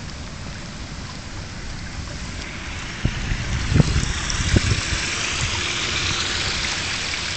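Rainwater running and trickling after a heavy downpour, with the hiss of the water growing louder about three seconds in. A few low thumps on the microphone.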